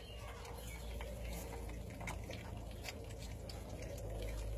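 25-day-old Catahoula bulldog puppies lapping and slurping a wet mash of dog food softened in goat milk, with many small, irregular wet smacks and clicks.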